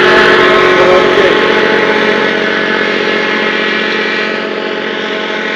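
Engine of a passing high-speed motorboat running steadily, slowly fading as it moves away.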